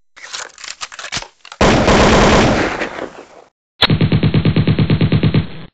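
Automatic gunfire sound effect: a scatter of sharp shots, a long loud blast that dies away, then from about four seconds in a steady rapid burst of about nine shots a second.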